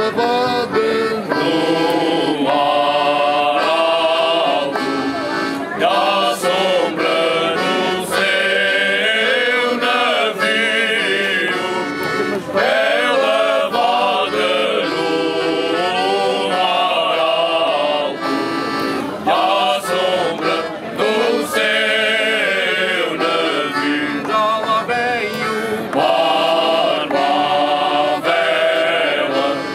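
A group of men singing a Cante Alentejano song together, accompanied by an accordion and two acoustic guitars, without pause.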